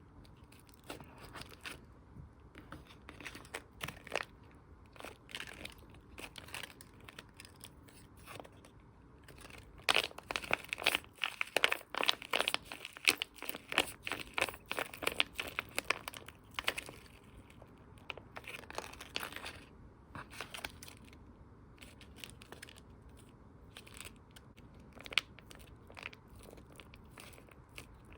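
Squishy toy being squeezed and worked by hand, giving a run of small crinkling, crackling sounds. The crackles come thick and loud for several seconds about a third of the way in, then thin out again.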